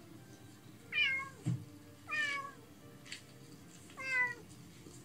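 House cat meowing three times, each call falling in pitch: lonely crying while left alone, which the owners suspect is separation anxiety.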